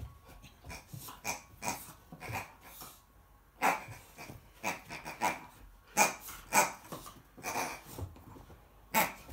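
American Akita puppy making short, sharp sounds in irregular bursts while playing with and mouthing a toy pig, the loudest about four, six and nine seconds in.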